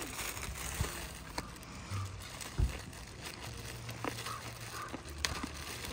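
Plastic bag of carrots crinkling and rustling as a hand digs into it, with scattered clicks and a single thump about two and a half seconds in.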